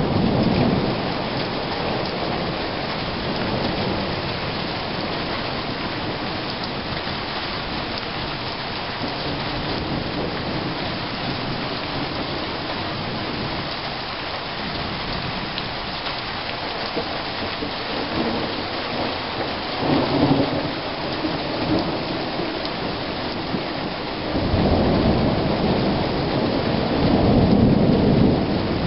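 Steady rain falling through a thunderstorm, with rolling thunder. A rumble dies away at the start, a shorter one comes about two-thirds of the way in, and a longer, louder rumble builds near the end.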